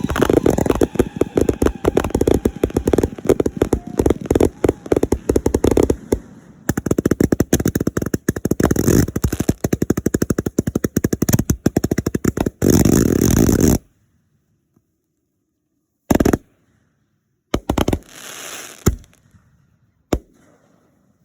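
Fireworks going off in a rapid, dense barrage of bangs and crackles that stops abruptly about two-thirds of the way through, followed by a few scattered single pops.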